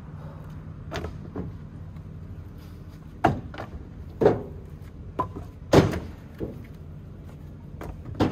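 Split firewood being tossed by hand into a trailer, with about five sharp wooden knocks as pieces land, the loudest a little after halfway, over a steady low hum.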